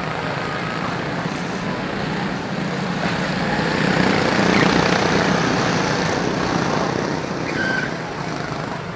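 A pack of Honda-engined quarter midget race cars lapping a small oval, their small single-cylinder four-stroke engines blending into one buzzing drone. The sound swells as the field passes close by about four seconds in, then fades as the cars head down the far straight.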